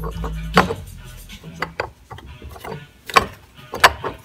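Irregular metal clicks and clunks from a steel bar prying at the shift fork and selector parts inside an opened NP242 transfer case, the parts knocking as they shift.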